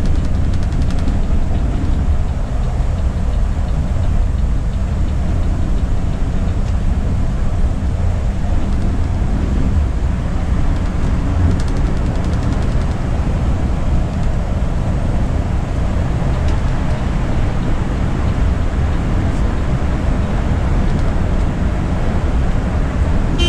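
Steady rumble of a Volvo B9R multi-axle coach on the move, engine and road noise heard from inside the cabin.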